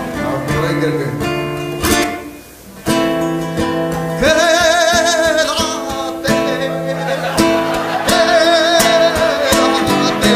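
Acoustic guitar strummed in chords while a man sings, holding long notes with a wide vibrato; the strumming breaks off briefly about two seconds in.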